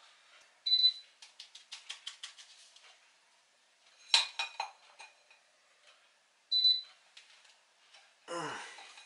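A metal utensil clicking and scraping around the rim of an aluminium flan mould, then a ceramic plate knocking against the mould about four seconds in, followed by lighter taps. Two short high beeps sound, one near the start and one about two-thirds of the way through.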